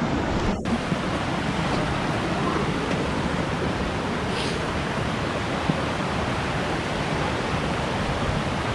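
Creek water rushing over rocks, a steady, even rush.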